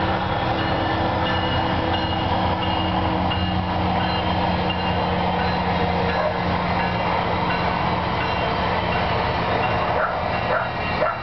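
A motor running steadily, a constant hum with a few held higher tones.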